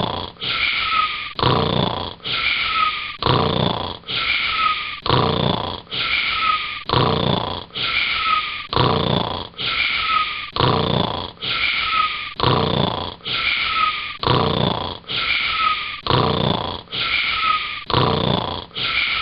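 A cartoon girl's snoring, one short snore repeating about once a second with exact, looped regularity.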